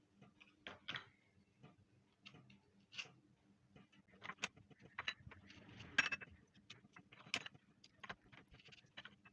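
Oreo cookies being handled as their cream filling is separated from the wafers: faint, irregular small clicks and scrapes, about one or two a second.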